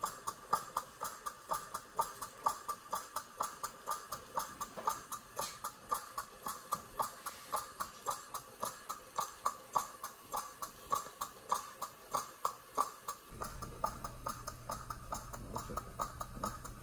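Stuart model beam engine running on steam from a model boiler, a steady, even beat of about three to four strokes a second. A steady low hum joins about three-quarters of the way through.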